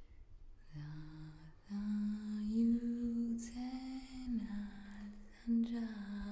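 A voice humming a slow melody in long held notes.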